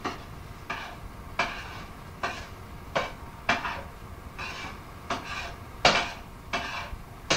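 A run of about ten short, sharp clatters or knocks, roughly one every three-quarters of a second, over the steady hiss of an old cassette recording.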